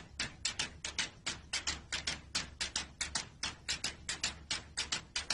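Rapid, slightly irregular clicking, about five or six sharp clicks a second, over a low steady hum.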